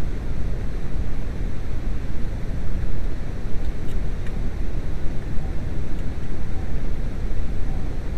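VW T4 Eurovan's 2.4-litre diesel engine running steadily, a constant low rumble.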